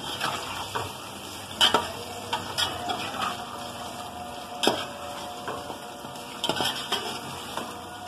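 Raw chicken pieces sizzling in hot oil with fried onions in a steel pot as they are browned, stirred with a steel spoon that scrapes and clinks against the pot several times.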